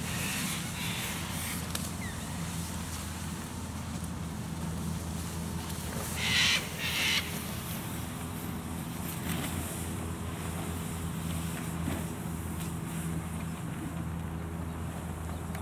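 A steady low engine hum, with two short harsh bird calls a little after six seconds in.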